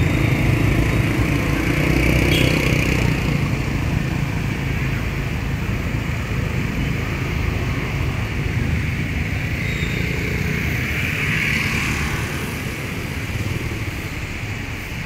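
Motorbike engine running with steady road noise from the moving bike, while other scooters and cars pass in busy street traffic, with two brief hissing swells about two and eleven seconds in.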